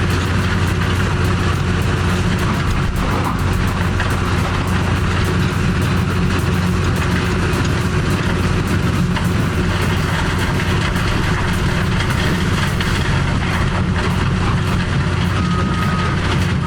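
Heavy diesel equipment running steadily under load, with a constant fine clatter, and a short high beep near the end.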